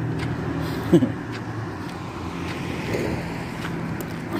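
A car's engine running with road noise, heard from inside the moving car, and a short voice-like sound about a second in.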